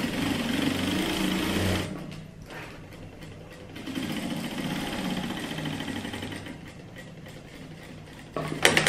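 Industrial straight-stitch sewing machine stitching a hem along the fabric edge in two runs: one of about two seconds, then, after a short pause, another of about two and a half seconds.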